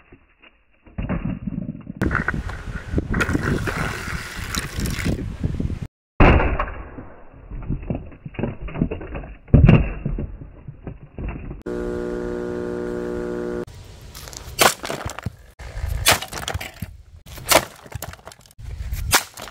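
A vintage Sears portable record player and its vinyl 45s being smashed with a wooden mallet: repeated blows, with plastic and vinyl cracking and breaking apart. Around the middle there is a steady buzzing tone for about two seconds.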